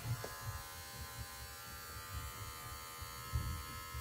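Electric hair clippers switching on and running with a steady buzz.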